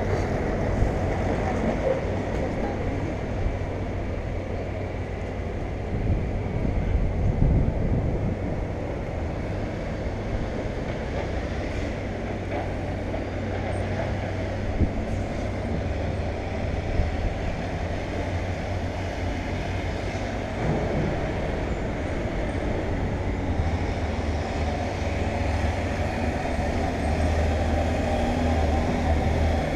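Steady low rumble of heavy vehicle engines, with a dump truck's diesel engine droning more strongly over the last few seconds.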